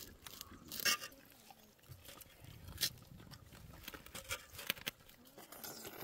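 Eating by hand from a metal pot of stiff porridge: soft squelches of fingers working the porridge, chewing, and scattered sharp clicks, the loudest about a second in and again near three seconds.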